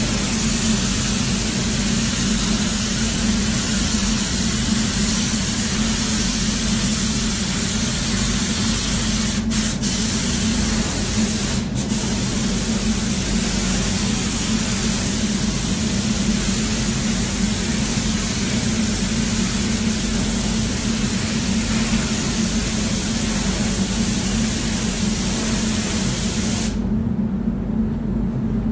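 Air spray gun hissing steadily as it sprays paint onto a car body, over a steady low hum. The spray hiss cuts off abruptly near the end as the trigger is released, leaving only the hum.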